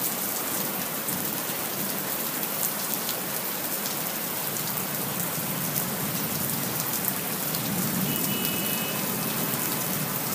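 Steady rain falling, an even hiss with scattered drop ticks.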